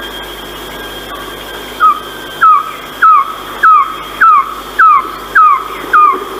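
Philippine trogon (Harpactes ardens) calling: a series of eight short, downward-slurred notes, evenly spaced about 0.6 s apart, starting about two seconds in. Beneath it runs a steady hiss with a thin, constant high tone.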